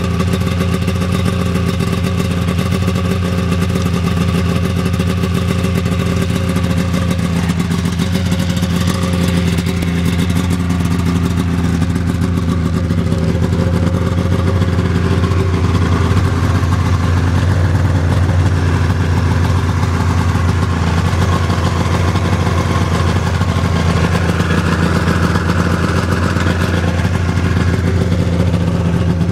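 Polaris XLT snowmobile's three-cylinder two-stroke engine running steadily at low speed, its pitch shifting slightly a few times in the middle.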